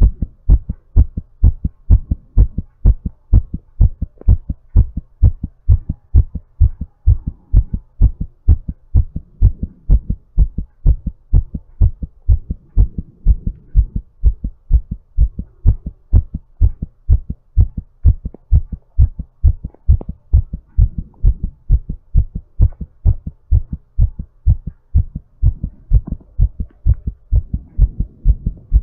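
Human heartbeat recorded close at the chest: a steady, even run of lub-dub beats, the heart recovering from exercise. Faint breath noise rises between the beats now and then.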